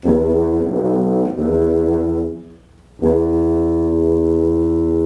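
Tuba played solo: two notes, a short pause, then a long held note from about three seconds in.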